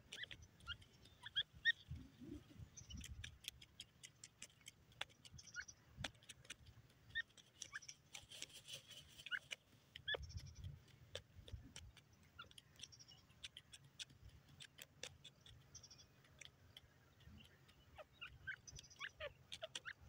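Faint scattered clicks and rustles of dry soil as a grey francolin dust-bathes in a scraped hollow, with short, soft bird chirps here and there.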